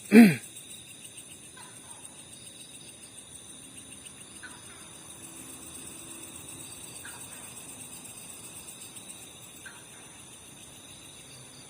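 Crickets and other insects chirping steadily, with a faint short call repeating about every two and a half seconds. Just after the start a brief, loud pitched sound slides down in pitch.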